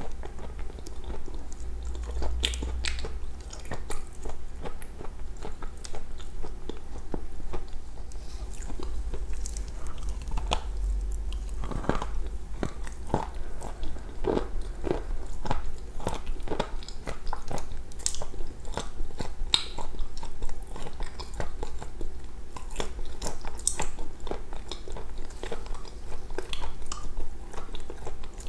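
A person chewing and biting food close to a clip-on microphone, with many small, irregular mouth clicks and smacks.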